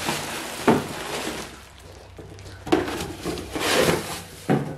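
Plastic packaging crinkling and rustling as a set of cooking spoons is pulled out of a cardboard box, with a sharp knock shortly after the start and another near the end.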